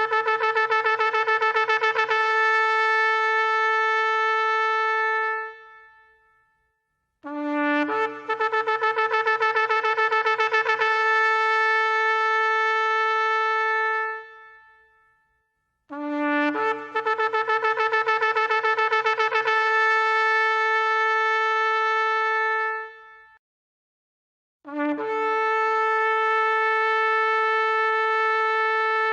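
Ram's-horn shofar sounded in a series of long blasts, four in all with brief pauses between them. Each blast starts on a short lower note, jumps up to a higher held note that flutters rapidly for its first few seconds, then holds steady and tails off.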